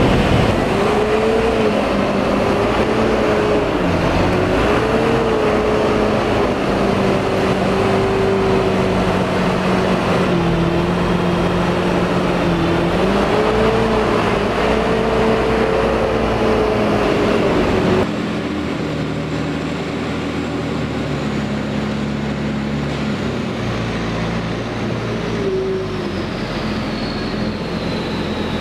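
Valtra T214 tractor's six-cylinder diesel engine working on a silage clamp, its pitch rising and falling with the load. About two-thirds through it gives way suddenly to a second tractor's engine running more steadily and a little quieter.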